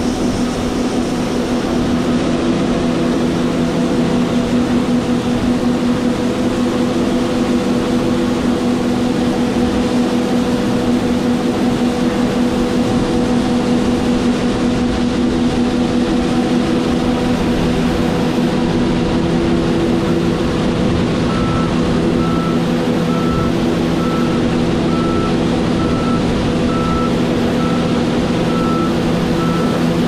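John Deere S550 combine running with its unloading auger pouring shelled corn into a grain trailer: a steady engine and auger hum with several held tones. From about two-thirds of the way in, a short high beep repeats a little faster than once a second.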